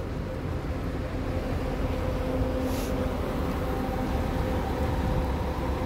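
Coach bus engine running as the bus pulls in, a steady hum over low rumble, with one short hiss about three seconds in.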